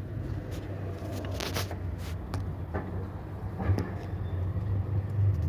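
A car engine running steadily, with a few irregular sharp clicks or knocks over it, the strongest about one and a half seconds in.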